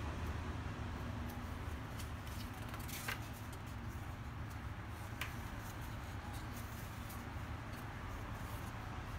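Pages of a large hardcover art book being turned by hand: soft paper rustles, with a crisp page flip about three seconds in and another about five seconds in, over a steady low hum.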